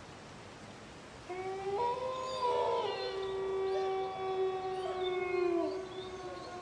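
A chorus of wolves howling: several long howls at different pitches overlap over a faint hiss, starting about a second in and dying away near the end.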